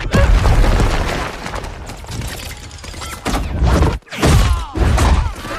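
Action-film battle sound effects: heavy booms, crashes and thuds. A loud hit comes at the start, with fresh impacts a little over three seconds in, around four seconds and around five seconds.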